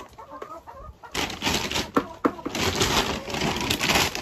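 Chickens clucking, with two short sharp clucks close together about two seconds in, over a steady hiss that comes in after the first second.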